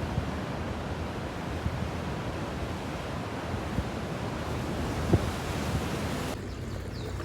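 Steady rushing wind noise buffeting the microphone, with a fluctuating low rumble and one short knock about five seconds in. The high hiss drops away suddenly near the end.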